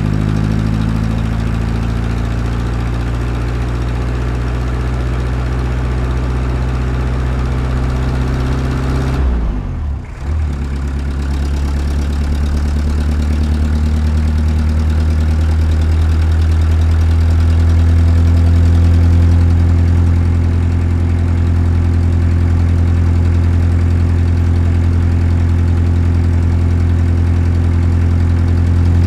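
Heavy diesel engine of earthmoving equipment running steadily at a low, even pitch. About a third of the way through it dips briefly, with a short drop and recovery in pitch.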